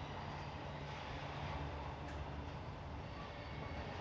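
Train running past: a steady low drone under the rushing noise of the rolling train.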